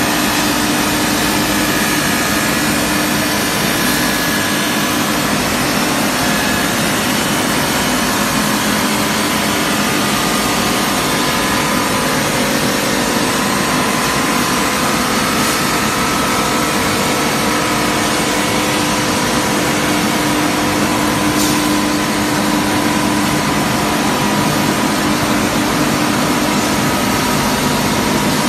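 Stainless steel tube mill running: a loud, steady industrial din of the forming rollers, drive motors and welding station, with a few steady hums held under it.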